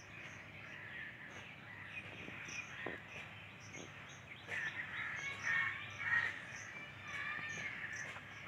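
Crows cawing, loudest around the middle, over outdoor ambience with a steady high chirping repeating a few times a second.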